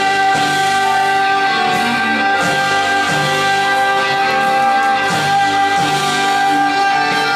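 Live band music, with one high note held steadily throughout over a repeating lower accompaniment.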